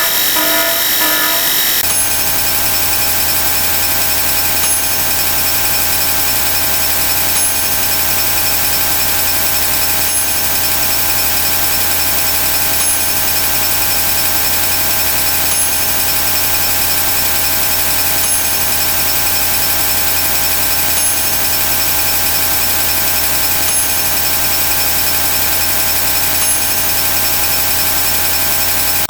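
Many stacked sound effects playing at once, mostly alarm-like electronic tones. A pulsing beep pattern in the first two seconds thickens at about two seconds into a loud, steady wall of overlapping tones and noise, with faint ticks every few seconds.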